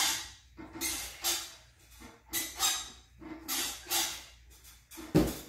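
A child breathing hard in quick paired breaths, about one pair a second, while working through repeated levers on a home gymnastics bar. A single loud thud near the end as she drops down from the bar.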